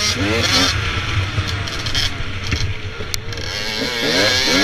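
Dirt bike engine revving up and down while riding a dirt trail, its pitch climbing in quick surges near the start and again about four seconds in. Wind noise rushes over the helmet camera's microphone.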